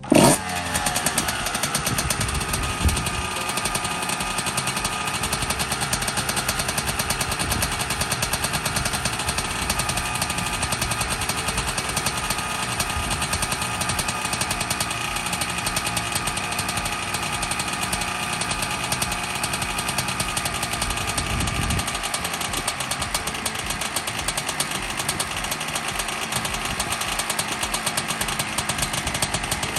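2005 Kawasaki KX125's single-cylinder two-stroke engine running: a brief rev right at the start that falls back to a steady, rapid, popping idle, with small throttle blips about three seconds in and again near twenty-two seconds.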